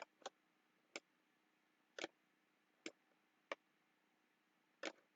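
About seven isolated computer mouse clicks, spaced irregularly roughly a second apart, with near silence between them.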